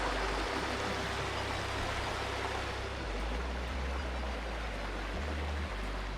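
Flowing creek water, a steady rushing hiss with a low rumble underneath.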